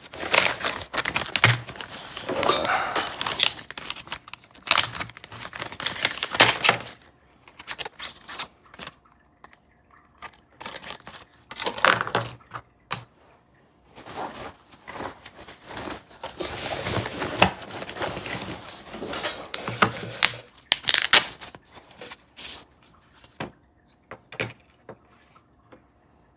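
Metallic clicking and rattling of a Mul-T-Lock Interactive dimple lock being handled, in several bouts separated by short quiet pauses.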